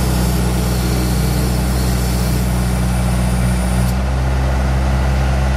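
Skid steer loader engine running steadily with the Bobcat 709 backhoe attachment mounted, a constant low drone at an even speed. A high hiss over it drops away about four seconds in.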